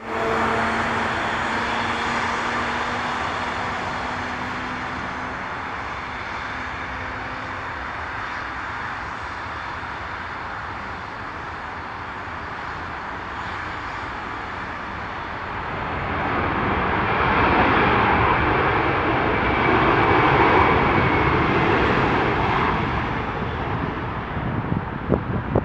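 Airbus A320 jet engines during a landing: a steady jet roar with a faint whine on approach that eases off, then swells louder for several seconds during the landing rollout, as reverse thrust is applied.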